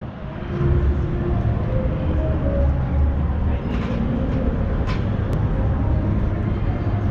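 Street ambience of traffic: a steady low rumble with a general hum over it, fading in over the first second.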